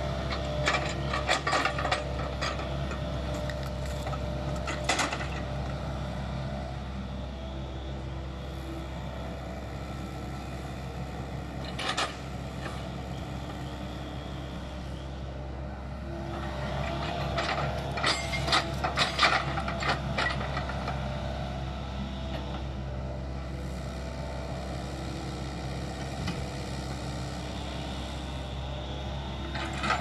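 Diesel engine of a tracked excavator with a log grapple running steadily while the grapple handles pine logs. Wooden knocks and clatters come about a second in, around five and twelve seconds, and in a busier run of knocks near the middle.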